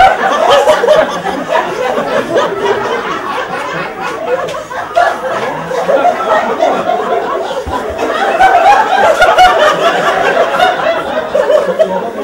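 Live audience laughing and chuckling, many voices at once, with some chatter mixed in.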